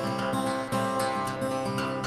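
Acoustic guitar music, plucked and strummed, with the notes changing about every half second.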